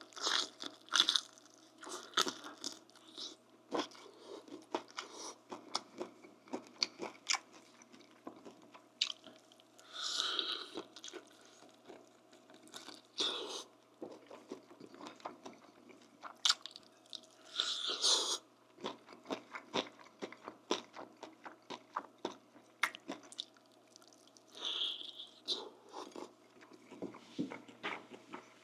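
A person eating close to the microphone: steady chewing with crisp crunches and wet mouth clicks, and a few longer, louder crunchy bites along the way.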